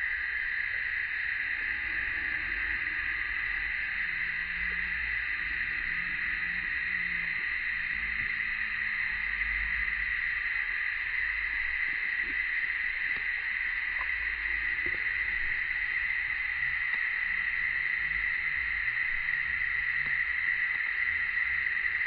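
Steady chorus of cicadas, an even high-pitched hiss that does not change.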